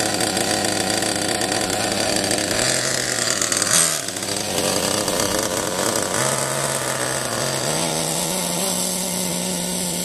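Novarossi 28-7 .28-size nitro engine in an Ofna Titan RC car running at high revs, its note stepping up and down as the throttle is worked, with a loud peak about four seconds in.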